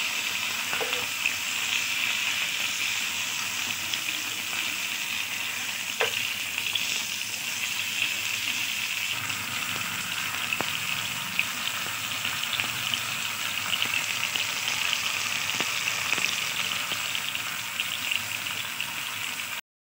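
Two whole tilapia shallow-frying in a little oil on a nonstick tawa: a steady sizzle with fine crackling of spitting oil and a few sharp ticks. The sound cuts off abruptly just before the end.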